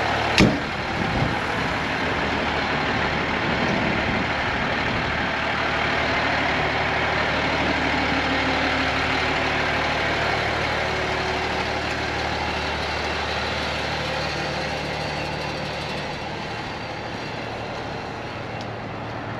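Fire engine's diesel engine idling steadily. A single sharp bang about half a second in, the cab door shutting.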